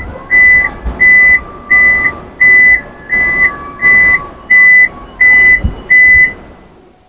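Toyota Innova Zenix power tailgate opening: its warning buzzer beeps evenly, about one and a half beeps a second, over a faint steady whine from the tailgate's motor. The beeps stop about six seconds in as the tailgate finishes moving.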